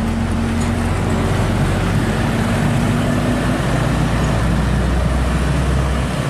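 Container semi-truck's diesel engine running as it drives past on a road, a steady low drone whose note shifts lower about halfway through, over the noise of passing traffic.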